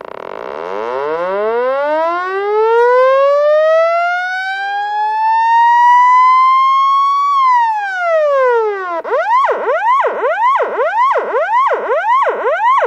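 Police siren sounding: a long wail that rises slowly for about seven seconds, drops back down, then switches to a fast yelp sweeping up and down about twice a second.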